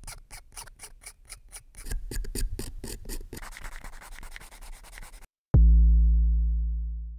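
Hobby knife blade scraping mould lines off a plastic miniature in quick strokes, about five a second, then a sanding stick rubbing the plastic for about two seconds. About five and a half seconds in, a loud, deep electronic bass note starts suddenly and fades away.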